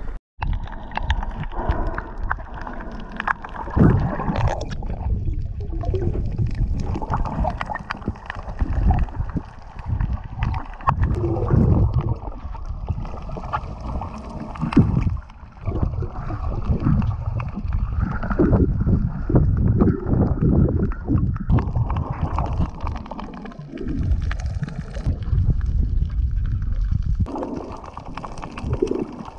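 Water sloshing and gurgling close to the microphone around a snorkeller, in irregular uneven surges.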